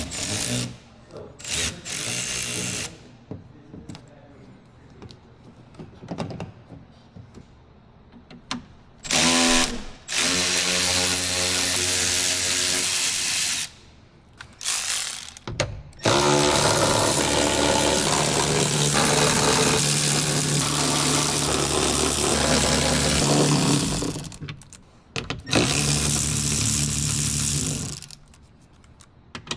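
A power drill running in repeated bursts: short blips, then longer runs of several seconds, the longest about eight seconds, each starting with a quick spin-up to a steady whir.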